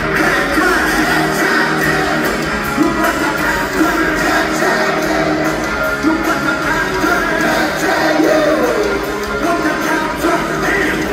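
A live hard rock band playing loudly, with electric guitars, bass and drums under a male lead singer's vocals, heard from the audience.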